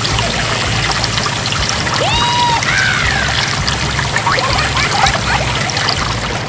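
A steady pouring, trickling rush with no break. About two seconds in come a couple of short whistle-like tones, one rising and one falling.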